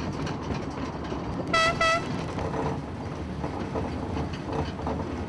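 Narrow-gauge petrol shunting locomotive running with its coach, a steady low rumble of engine and wheels on the track, and two short toots of its horn about one and a half seconds in.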